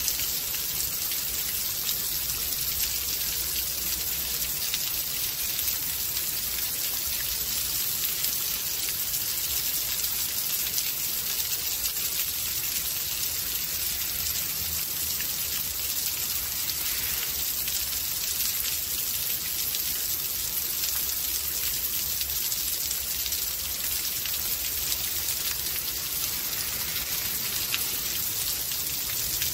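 Rainstorm: steady rain falling, an even hiss of drops, mostly high-pitched, speckled with countless small drop ticks.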